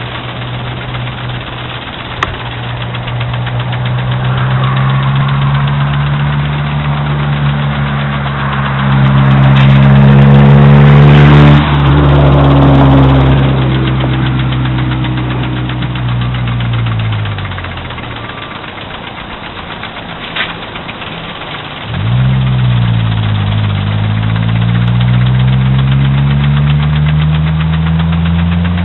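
A motor drones at a steady pitch, swelling to a loud rushing peak about a third of the way in that stops abruptly, then fading away. A few seconds later a motor starts up suddenly, its pitch climbing before it holds steady.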